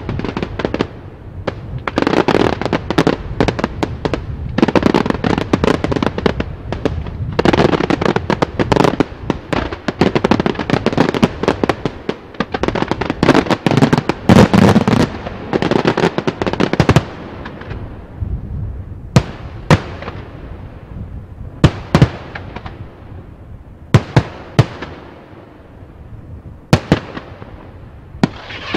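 Daytime aerial fireworks: a dense barrage of rapid bangs and crackling, thinning after about seventeen seconds to single loud bangs a second or two apart.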